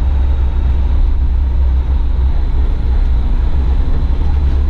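School bus engine running with a steady low rumble.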